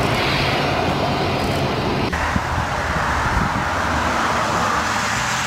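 Ilyushin Il-76 four-engine jet transport's turbofans running, a steady loud jet noise with a low hum underneath. The noise changes abruptly about two seconds in.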